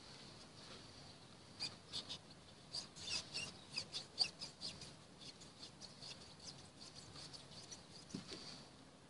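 Rubber bump stop above a VAZ-2101/2107 front upper control arm squeaking in a quick run of short chirps as it is twisted and worked on its mount by hand. The squeaks start about a second and a half in, are thickest in the middle, and die away near the end.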